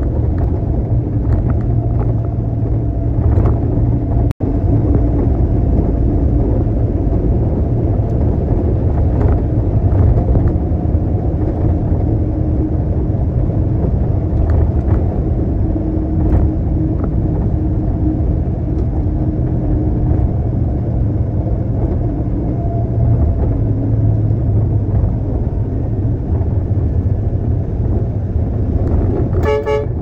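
Concrete mixer truck's diesel engine running steadily with a deep rumble, with a short horn toot near the end.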